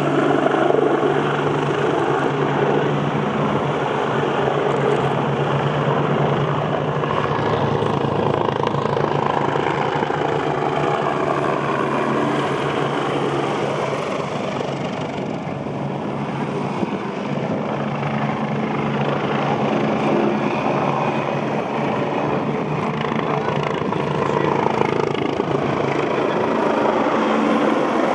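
Military helicopter flying close, a steady, continuous rotor and turbine noise that eases slightly midway and builds again.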